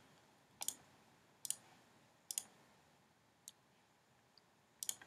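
Faint computer mouse-button clicks, about one a second, ending in a quick double click near the end.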